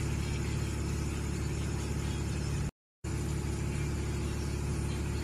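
Steady low engine hum. It cuts out completely for a moment about three seconds in, then resumes.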